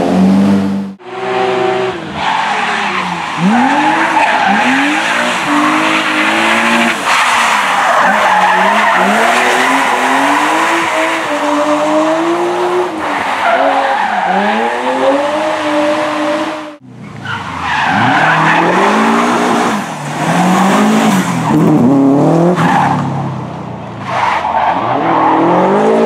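Rally cars driven flat out through tight bends, one after another: a BMW E36 3 Series coupe, then a Subaru Impreza. Their engines rev up and drop back again and again through the gear changes, with tyres squealing. The sound cuts off abruptly twice, about a second in and about two-thirds of the way through, as one car gives way to the next.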